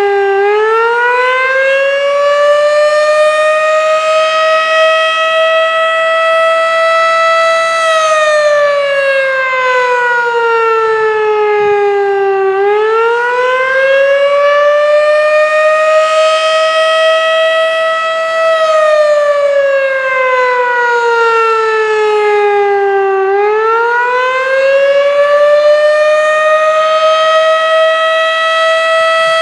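Federal Signal Model 3 tornado siren sounding the Attack signal: a loud, single-tone wail that rises in pitch, holds near the top for several seconds, then slides slowly down and rises again, about every 11 seconds.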